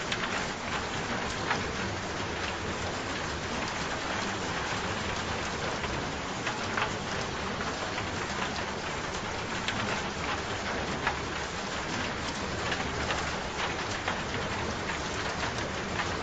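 Steady rain falling, a continuous hiss with many individual drops ticking on a surface.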